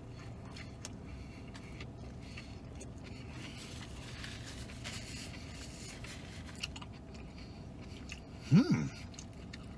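A man chewing a big bite of plant-based burger, faint chewing under the background hiss. Near the end comes one brief vocal sound that rises in pitch, the loudest thing here.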